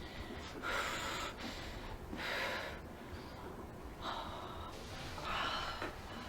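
A chiropractic patient breathing heavily: four loud, hissing breaths, roughly one every second and a half.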